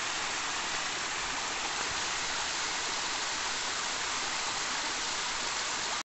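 Rainwater runoff rushing down a muddy dirt road, a steady even sound of flowing water that cuts off suddenly near the end.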